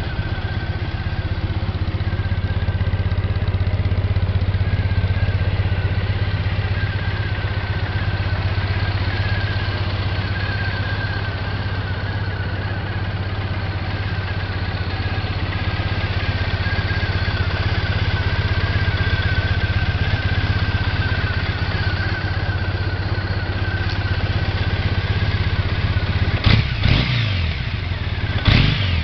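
2015 Triumph Bonneville T100's air-cooled 865 cc parallel-twin engine idling steadily, with two brief throttle blips near the end.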